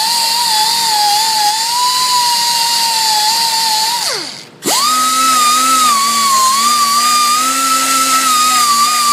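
High-speed die grinder spinning a white bristle disc over an aluminum cylinder head's gasket surface, with a steady high whine, stripping old gasket material at high RPM and light pressure. About four seconds in the whine slides down and drops out, then spins straight back up.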